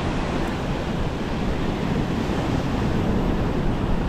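Ocean surf washing against a rock ledge, a steady rushing wash, with wind buffeting the microphone.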